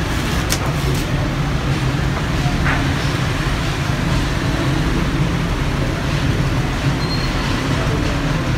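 Steady low mechanical hum with a rumbling background noise, unchanging throughout.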